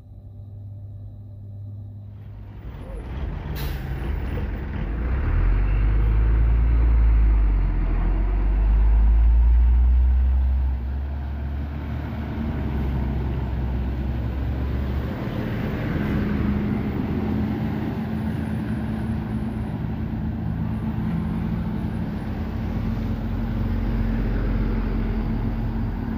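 Heavy diesel trucks running hard on a steep wet hill road, the Mitsubishi truck's engine swelling to its loudest as it passes close about five to ten seconds in, then a steady drone of further trucks, with tyres on the wet road. A brief sharp noise about three and a half seconds in.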